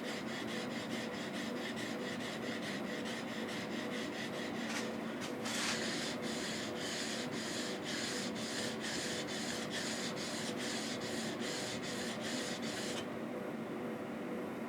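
Steel chisel's flat back being rubbed back and forth on a diamond sharpening stone wet with lapping fluid, about two strokes a second, stopping about a second and a half before the end. The underside is being flattened and polished.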